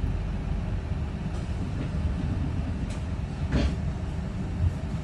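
Steady low rumble of a double-decker bus heard from its upper deck, with a faint steady hum and a brief sharper sound a little past halfway.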